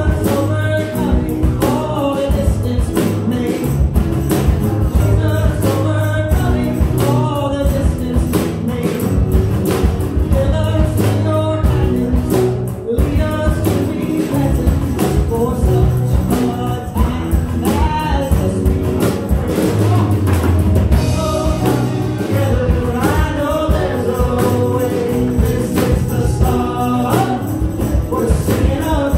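Live band playing a worship song: a man and a woman singing the lyrics over acoustic guitar, keyboard and a steady drum beat.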